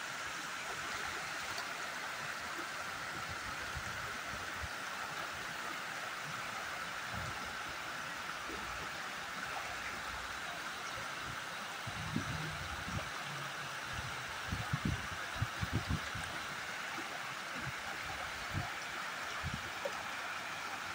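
Small river's water running steadily, an even rushing. A few soft low bumps come in around the middle.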